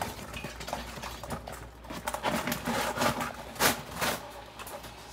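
Live blue crabs scrabbling in a stainless steel stock pot among a torn paper bag: scattered clicks, scrapes and paper crinkles, the sharpest click about three and a half seconds in.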